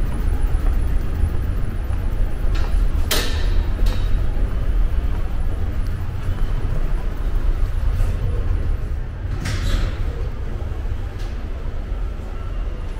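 Subway station ambience: a steady low rumble with a handful of sharp clicks and knocks scattered through it.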